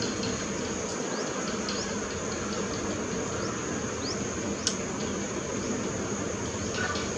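A steady, high-pitched insect drone over a low, even rumble, with scattered short rising bird chirps and one sharp tick a little past the middle.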